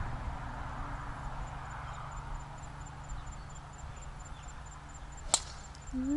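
A golf club striking a teed ball: one sharp crack about five seconds in, over a faint steady outdoor background.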